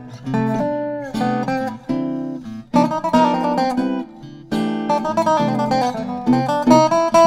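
Eight-string resonator steel guitar played lap-style with a steel bar, picking a jazz melody with notes that slide in pitch. Archtop guitar chords are strummed underneath.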